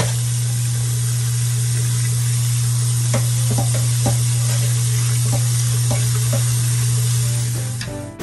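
Tap water running onto raw chicken wings in a stainless-steel colander in a metal sink, a steady rush with a steady low hum under it. Light knocks come in the middle as gloved hands turn the wings, and the sound fades out near the end.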